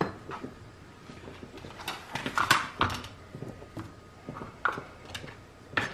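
Light knocks and clatters of kitchen items being handled and set down, scattered and irregular. The loudest come about two and a half seconds in and near the end.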